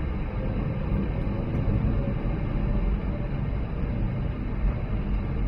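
Airbus A220-100's Pratt & Whitney PW1500G geared turbofan engines at low taxi power, heard inside the cabin: a steady low rumble with a faint whine, as the jet lines up on the runway for takeoff.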